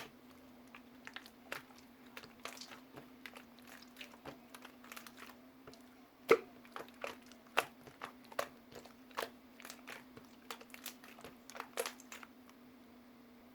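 Slime being kneaded and squeezed by hand, giving many irregular crackling clicks and pops, the loudest about six seconds in, over a faint steady hum.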